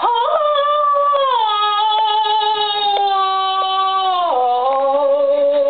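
A high voice singing long held notes, sliding down to a lower note about a second in and again past four seconds.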